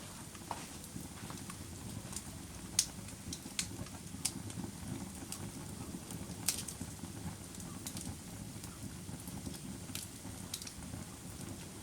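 Campfire burning: a steady low rush of flames under scattered sharp crackles and pops from the burning wood, the loudest pops about three seconds in and again just past halfway.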